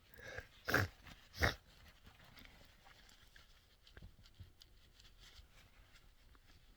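A person with a head cold sneezing twice in quick succession, a short breath in just before the first sneeze, the two sharp sneezes less than a second apart.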